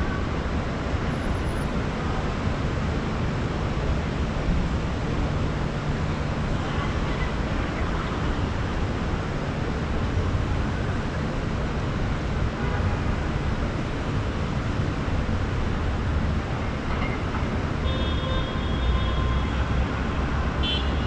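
City street traffic heard from high above: a steady wash of engine and tyre noise with a low rumble. Faint, brief high-pitched tones come in near the end.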